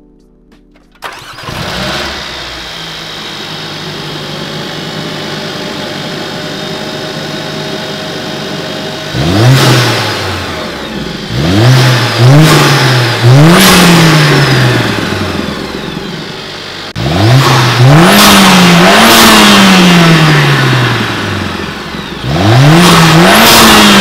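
Mercedes-AMG CLA45 S's turbocharged 2.0-litre four-cylinder starts about a second in and idles, then is revved in a string of sharp blips from about nine seconds in, the pitch rising quickly and falling back each time. A rising turbo whistle and intake whoosh come through a carbon-fiber cold air intake on each rev.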